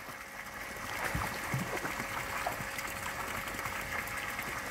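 Water sloshing and splashing as German Shepherds wade and nose about in a shallow garden pond. Small, irregular splashes grow a little louder about a second in.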